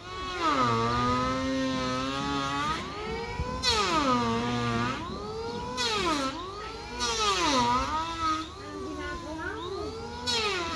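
Handheld power tool working into timber, its motor whine sagging in pitch as it bogs down under load and climbing back as it frees up, about five times.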